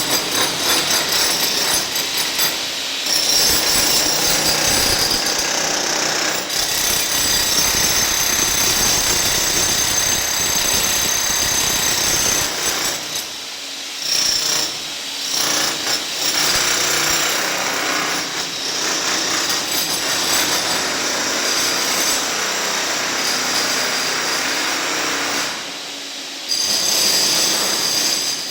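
Concrete cutting machine working into concrete: a steady high motor whine over a gritty grinding noise. It eases off briefly a few times, around the middle and near the end.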